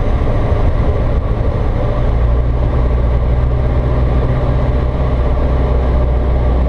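Single-engine piston airplane's engine and propeller running steadily at approach power, a low drone heard inside the cockpit on final approach to land.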